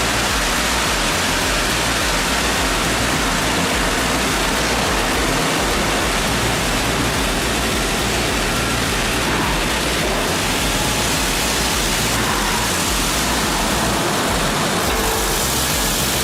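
Mebor horizontal band sawmill running and cutting a log: a steady, loud, even rush of saw and machine noise.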